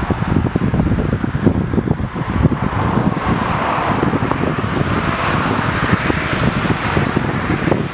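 Wind buffeting the microphone in a steady low rumble, with a rushing noise that swells up about three seconds in and eases off near the end.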